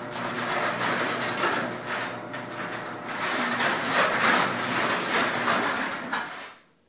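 Garage door opener running as the door travels, a steady motor hum under an uneven rattle, stopping about six and a half seconds in.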